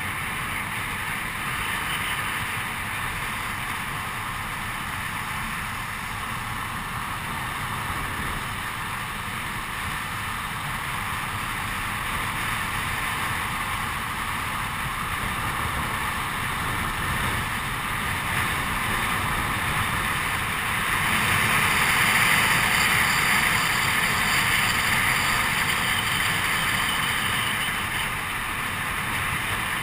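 Wind rushing over the microphone with the rolling roar of longboard wheels on asphalt during a fast downhill run, swelling louder for a few seconds about two-thirds of the way through.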